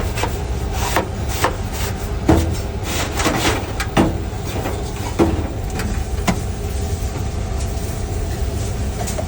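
Steady low hum of kitchen machinery with scattered knocks and scrapes as the commercial induction cooker's housing and parts are handled during cleanup and refitting.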